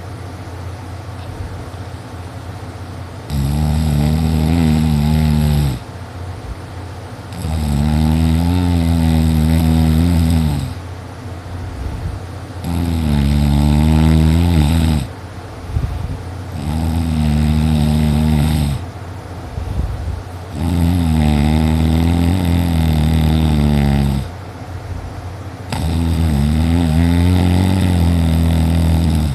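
A person snoring loudly in deep sleep after heavy drinking: six long snores, about every four seconds, each lasting two to three seconds with a breath's pause between.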